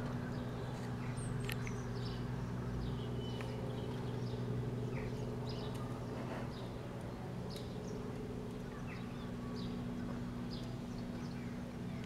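Distant Robinson R44 helicopter flying away, a steady low hum that fades slightly. Birds chirp in short calls throughout.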